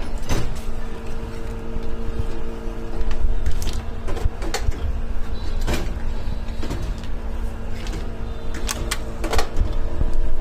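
Electric slipper-sole cutting press running with a steady motor hum, and irregular sharp metallic clacks about every second as the machine and its cutting die work.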